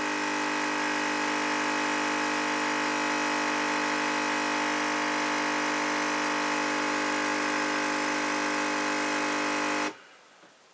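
DeLonghi Lattissima 680 Nespresso machine's pump running steadily as it brews the coffee shot of a latte macchiato, a steady hum of several tones. It cuts off suddenly near the end when the shot is done.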